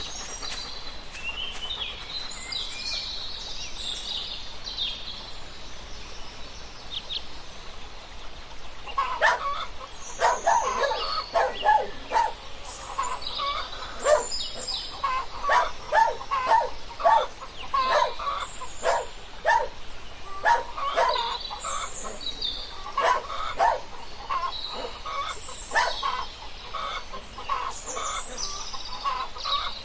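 Chickens clucking: high chirps through the first few seconds, then from about nine seconds on a busy run of short, repeated clucks, about two a second.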